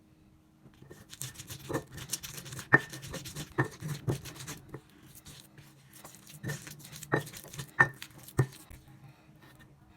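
Kitchen utensils clinking and scraping against cookware: irregular sharp knocks with a short ring, roughly one a second, over light scraping.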